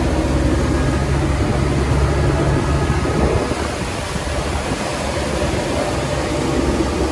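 Boat engine running steadily under way: a low, even hum under a constant rushing noise.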